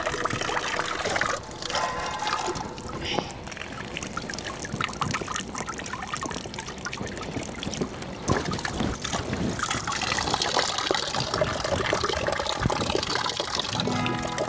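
Water splashing and trickling in a plastic tub as a puppy is dipped and washed by hand, with a thin stream of water falling from a bamboo spout.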